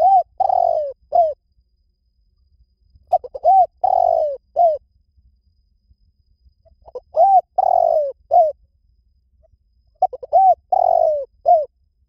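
Spotted dove cooing: four phrases about three and a half seconds apart, each a few short arched coos with one longer falling coo in the middle.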